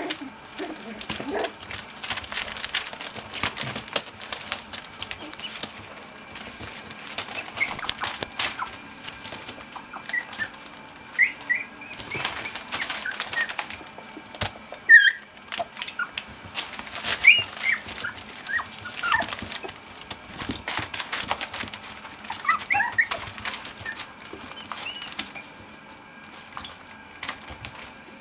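Young cocker spaniel puppies squeaking and yipping in short, high-pitched calls now and then, loudest about halfway through, over the scratching and rustling of small paws on newspaper.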